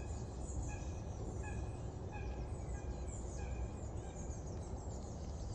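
Birds calling at a lakeside: one bird repeats a short call many times, every half second or so, over faint high birdsong and a low steady rumble.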